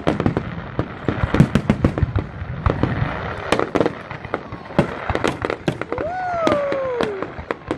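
Fireworks display: a rapid, irregular string of sharp bangs and crackles from aerial shells bursting overhead.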